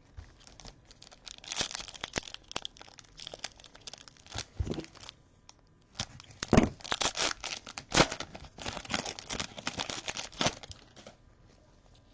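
A trading card pack's wrapper being torn open and crinkled, in irregular runs of crackling with a short pause partway through.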